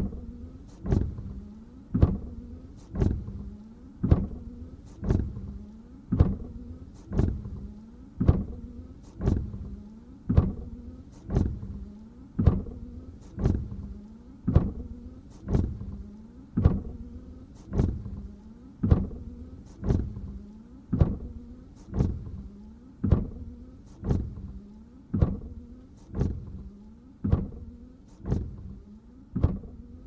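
Car windshield wipers sweeping over a dry windshield, a knock at each stroke about once a second, with the wiper motor's hum rising and falling between knocks. The rhythm holds steady throughout.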